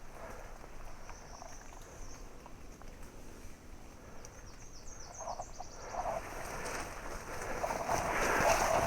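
Woodland ambience: a steady high-pitched chorus of calling wildlife, with a short run of quick descending chirps about four seconds in. From about six seconds, rustling grows louder toward the end.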